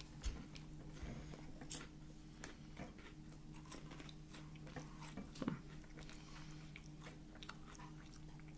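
Faint chewing and mouth sounds from eating a melted chocolate wafer bar: scattered soft clicks and smacks, with a steady low hum underneath.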